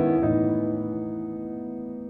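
Background music: a last chord struck just after the start rings on and slowly fades away.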